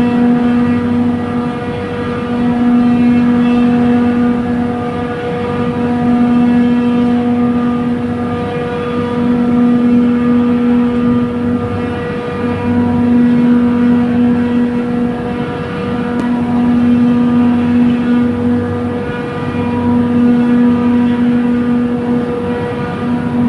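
Trane chiller compressor running, a steady loud mechanical hum with a strong low tone that swells and dips about every three seconds, over a fixed higher tone. It is running with a newly fitted discharge non-return valve that now closes properly.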